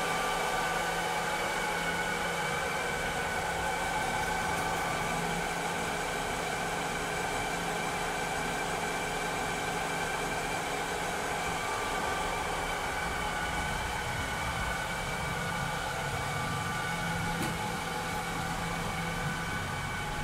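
Robotic vacuum cleaner running steadily: its motor hum and fan whir, with a few constant whining tones over an even airflow hiss.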